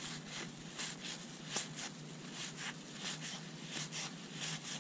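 Cardboard 1981 Fleer baseball cards being thumbed through by hand, each card sliding off the stack with a soft swish about every half second, with one sharper click about one and a half seconds in.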